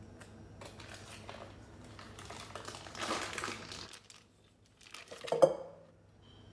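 Foil wrapper of a block of cream cheese crinkling as it is peeled open, loudest about three seconds in. A single dull thud about five seconds in as the soft block drops into a stainless steel mixing bowl.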